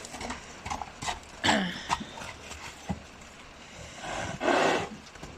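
Horses running about: scattered hoofbeats, a short call falling in pitch about a second and a half in, and a loud, breathy blast lasting about half a second near the end.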